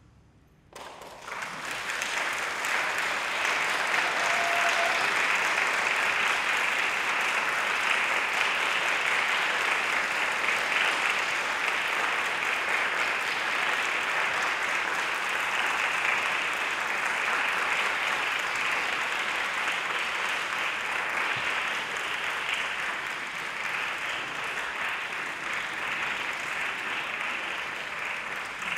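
Audience applauding, starting about a second in after a brief silence and continuing steadily.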